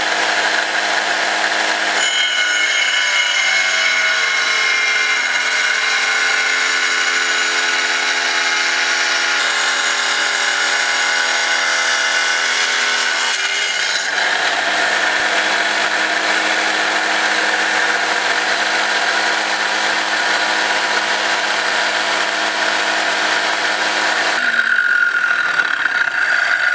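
Wet tile saw's diamond blade cutting through a chunk of ore rock: a loud, steady grinding whine that shifts in tone as the stone is pushed into the blade. Near the end the blade runs freely as the rock is drawn back.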